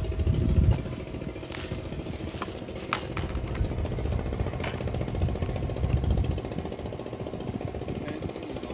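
A small engine running steadily, with a fast even pulse. A few sharp clicks and low knocks sit on top of it.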